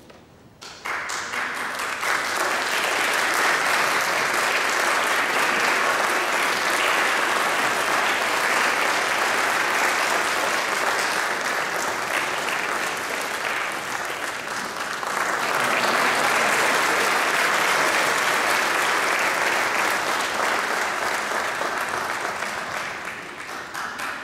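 Audience applauding, breaking out suddenly just under a second in and swelling again a little past halfway.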